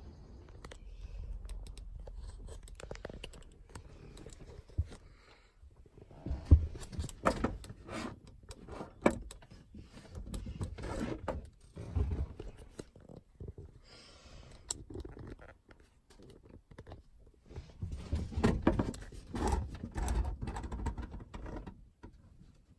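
Irregular knocks, clicks, rustles and scrapes as a phone is handled while someone gets into a pickup truck's cab, with short quiet gaps in between.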